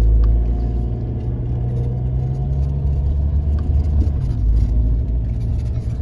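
Car engine and road rumble heard from inside the cabin while driving. The engine note drops slightly about four seconds in.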